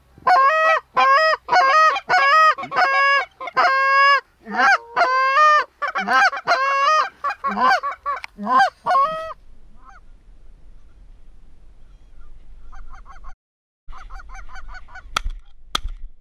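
Canada goose honking, loud and rapid, with about three honks a second for the first nine seconds, then fainter, more distant honking. Near the end come two sharp cracks less than a second apart, shotgun shots at the incoming geese.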